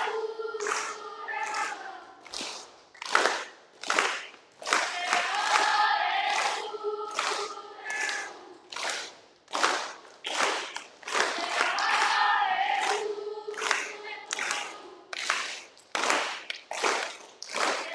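Music for a hula: a group of voices singing over a sharp percussion beat of about two strikes a second.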